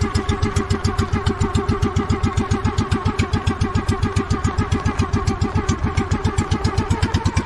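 Outrigger boat's engine running steadily, an even fast chug of about seven beats a second.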